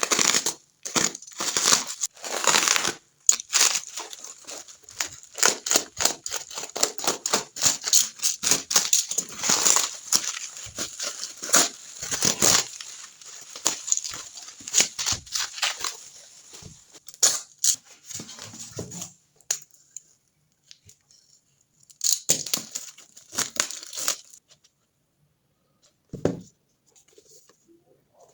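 Packaging being torn open and crinkled by hand, with dense crackling rustles for most of the first half, then sparser bursts with pauses between them.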